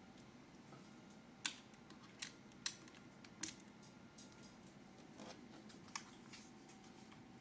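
A handful of sharp clicks and taps, about five, unevenly spaced with a soft rustle between, over faint background hiss.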